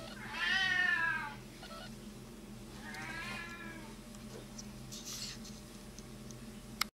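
A domestic cat meowing twice, each meow rising and then falling in pitch, the first louder than the second.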